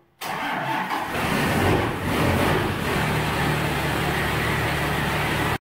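A motor vehicle engine running, rising and falling over the first few seconds, then holding a steady low note. It cuts off abruptly near the end.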